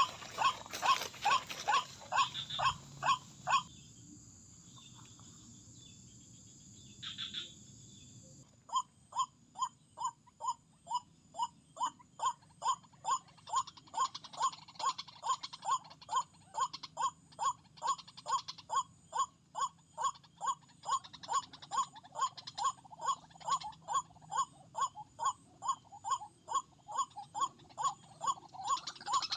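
White-breasted waterhen (ruak-ruak) calls repeated in a steady, even rhythm, about two a second. The calls break off for about five seconds early on, then resume and keep going.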